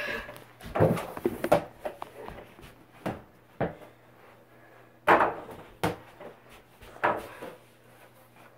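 Scattered knocks and thumps in a small room, about eight of them: a phone being handled and set down on a wooden dresser, then people moving about during play. The louder knocks come in the first second and a half and again around five and seven seconds in.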